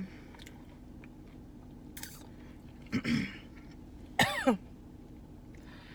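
A woman coughing and clearing her throat a few times, with a short downward-sliding vocal sound a little after the middle, as the spicy chicken sandwich she is eating catches in her throat.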